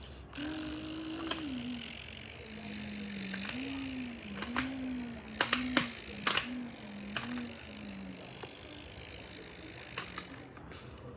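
A person imitating a car engine with their mouth: a held hum that drops in pitch, then a string of short rising-and-falling swells like quick gear changes. A few sharp clicks come near the middle.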